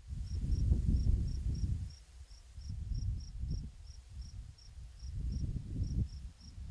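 Wind buffeting the microphone in uneven gusts, with a cricket chirping steadily about three times a second in the background.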